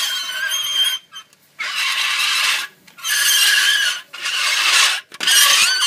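A child's high, breathy voice imitating a train whistle, in about five bursts of a second or so each with short gaps between them.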